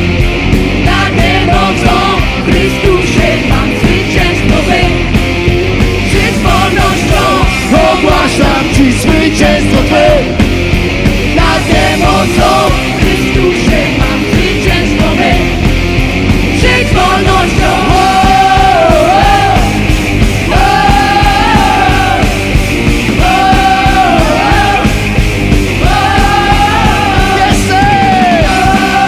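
Worship band playing a loud rock song with a steady beat and sung vocals; about halfway through, the singing moves to longer held notes.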